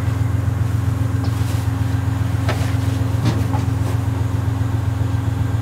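Diesel-electric locomotive, an Amtrak GE B32-8WH, running steadily with the train standing: a constant low drone. A couple of faint knocks come about halfway through.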